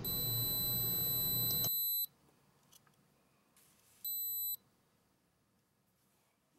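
Polaroid Cube action camera beeping as its top button is pressed: one long high beep of about two seconds, then a short beep about four seconds in.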